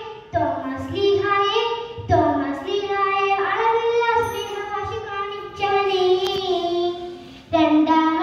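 A young girl singing solo into a microphone: sung phrases with long held notes and brief breaths between them.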